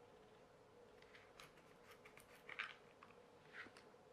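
Near silence: room tone with a faint steady hum and a few faint small clicks and taps, the loudest a short cluster about two and a half seconds in.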